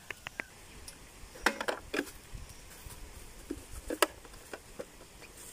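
Scattered sharp clicks and knocks of vegetable cutting and utensil handling: three quick taps at the start, a short cluster a second and a half in, and the loudest knock about four seconds in.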